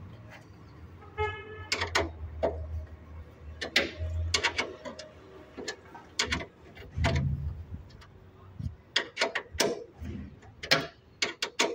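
Irregular metallic clicks and knocks of an 8-9 mm spanner loosening and removing the fasteners of a car's windshield washer reservoir and pump, with a short beep about a second in over a low steady hum.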